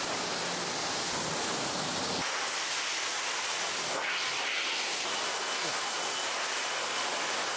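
Pressure washer spraying water onto a car, a steady hiss; the deep part of the sound drops away about two seconds in.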